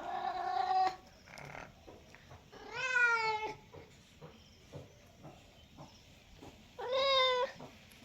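Domestic cat meowing three times, a few seconds apart. The first meow is already under way at the start, the second, about three seconds in, rises and then falls in pitch, and the third comes about seven seconds in.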